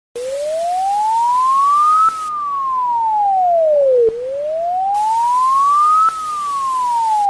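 Electronic emergency alert alarm tone: a single pure tone wailing slowly up and down like a siren, about two seconds rising and two seconds falling, twice over, with a hiss behind it during the rises.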